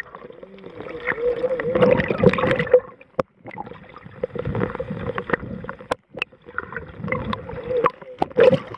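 Water gurgling and sloshing around a camera held just below the surface, heard muffled as through water, with a steady hum underneath and scattered clicks.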